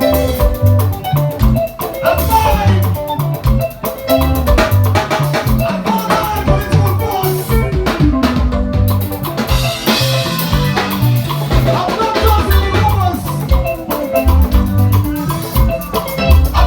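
Upbeat band music with a drum kit, a repeating bass line and melodic instruments playing over it.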